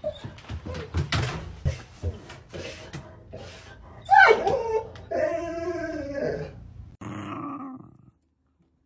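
A door's metal mail slot flap clacks repeatedly as a dog noses and paws at it. About four seconds in the dog whines, then gives a longer wavering, grumbling vocal call.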